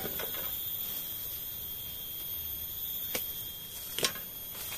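A few sharp wooden clicks from cut serut branches being handled, one about three seconds in and a louder pair a second later, over a steady high-pitched drone.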